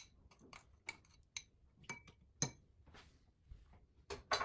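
A metal spoon stirring a honey and orange juice mixture in a glass bowl, clinking against the glass in short, irregular taps, with a louder scrape near the end.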